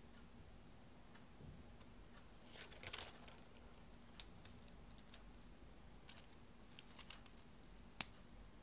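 Small plastic building bricks clicking and tapping as they are handled and snapped together: faint scattered clicks, a quick cluster about three seconds in and one sharper click near the end.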